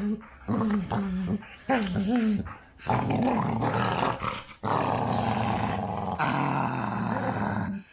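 Dog growling during rough play-wrestling. Three short growls rise and fall in pitch over the first couple of seconds, then one long rough growl runs from about three seconds in until near the end.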